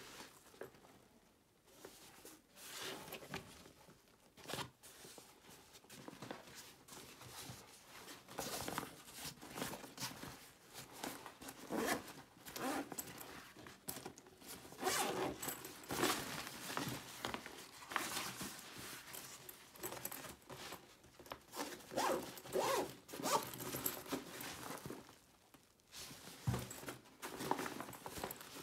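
Zippers on an Under Armour Undeniable 5.0 duffel bag being pulled open and shut, over and over in short, irregular runs.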